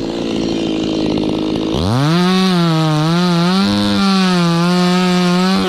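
Stihl two-stroke chainsaw running, then revved sharply to full throttle about two seconds in. It holds high revs with a wavering pitch while cutting into the kapok trunk, and eases off at the very end.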